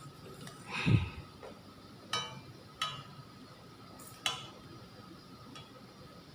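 Metal spoon knocking and clinking against a kadhai while stirring: a dull knock about a second in, then three sharp ringing clinks.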